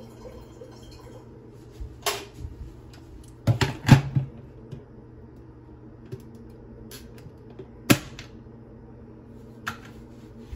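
Glass electric kettle being set back on its base, its lid shut and switched on: a handful of sharp clicks and knocks, the loudest about four seconds in, over a low steady hum.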